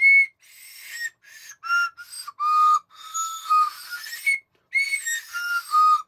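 A toy candy whistle, a row of small plastic whistle tubes partly filled with candy pellets, blown one tube after another. It gives about ten short, breathy toots whose pitch steps downward from high to low, and the run is played twice. Some of its notes still come out dud.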